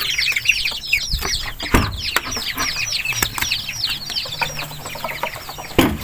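A flock of ducklings peeping nonstop, many high, falling peeps overlapping. A couple of dull thumps, about two seconds in and near the end.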